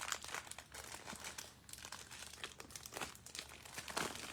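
Plastic trading-card packaging crinkling and rustling in the hands as a card box is opened, with irregular crackles throughout and a louder crinkle near the end.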